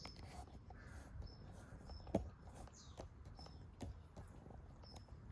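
Faint ambience with short high-pitched chirps about once a second and scattered light clicks.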